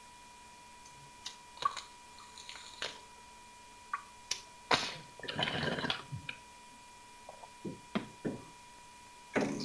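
Scattered clicks, knocks and a rustle of about a second near the middle as a person shifts about and sits up in a leather chair, over a faint steady high-pitched tone.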